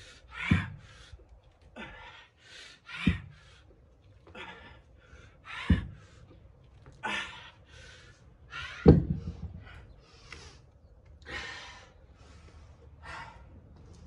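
Hard breathing of a man lifting heavy dumbbells in clean and presses: quick hissing breaths in and out. A sharper, louder exhale comes with each rep, four times at about two-and-a-half-second intervals.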